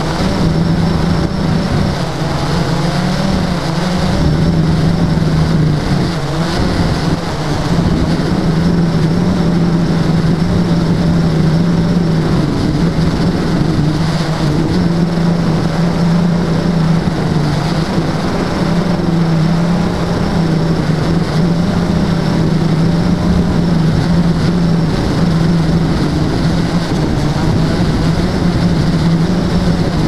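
Blade quadcopter's electric motors and propellers running with a steady hum that wavers slightly in pitch, heard from the GoPro on the drone, with wind rushing over the microphone.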